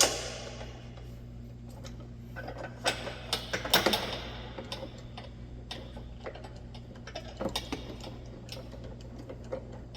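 Hand tools clicking and clinking on metal fasteners while a Ford Bronco's front bumper is unbolted. The clicks come in irregular clusters, thickest about two and a half to four seconds in and again near eight seconds, over a steady low hum.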